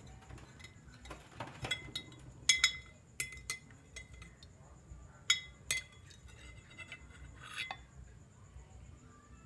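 A metal ladle clinking against the rim and sides of a glass jar as it is dipped into the cooking oil and lifted out: a scatter of sharp clinks with a brief glassy ring, the loudest about two and a half and five seconds in.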